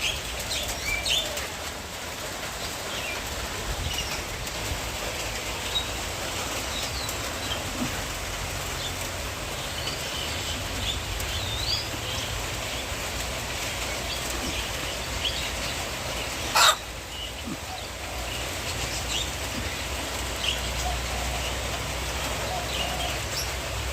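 Chicken-pen ambience: scattered short bird chirps over a steady background hiss, with one sharp click about two-thirds of the way through.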